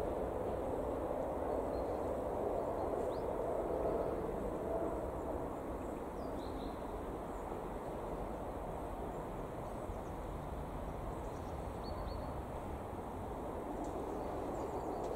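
Outdoor background ambience: a steady low hiss of distant noise, a little louder in the first few seconds, with a few faint, brief bird chirps.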